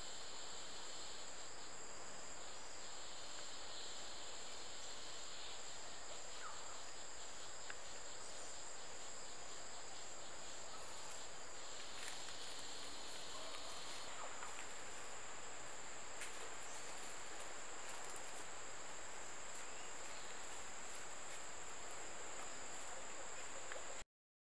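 Tropical forest insects: a steady, high-pitched buzzing chorus, with a second, lower buzz that starts and stops several times and a few faint clicks. The sound cuts off suddenly near the end.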